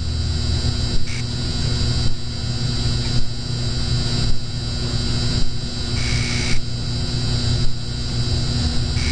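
Neon sign buzzing over a steady electrical hum, with short flickering crackles about once a second.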